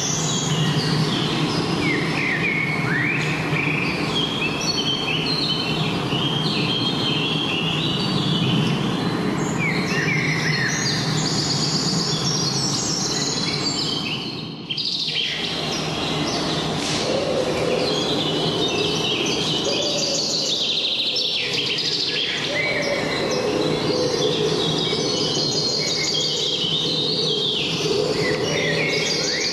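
Many songbirds singing and calling at once, a dense chorus of chirps and trills, over a steady low background noise; the sound dips briefly about halfway through.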